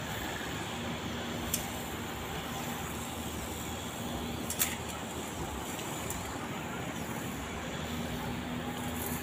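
Distant diesel locomotive approaching, a steady low engine drone under a wide rush of noise. Two short sharp clicks stand out, about a second and a half in and about four and a half seconds in.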